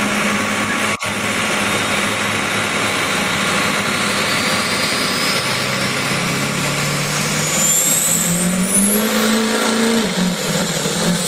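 Ford pulling truck's engine running hard through a pass down a pulling track, its pitch climbing in the second half as it revs higher.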